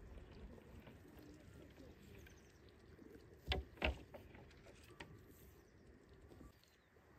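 Two sharp knocks about half a second apart, a little past the middle, over a quiet background with faint scattered ticks.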